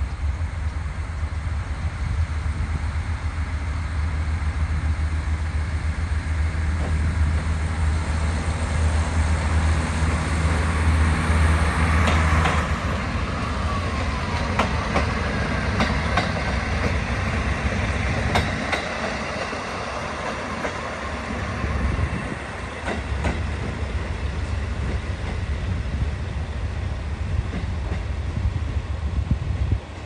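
Two-car KiHa 40 diesel railcar set pulling away: its diesel engine drones steadily under power, then eases off about twelve seconds in. The cars then roll past with wheels clicking over rail joints and a brief falling squeal.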